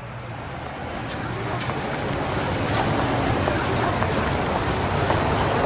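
City street ambience fading in: a steady rumble of motor traffic under a dense wash of street noise, with a few faint clicks.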